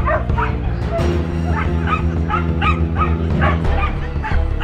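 A dog barking and yipping over and over, about two or three short barks a second, over music with steady low bass notes.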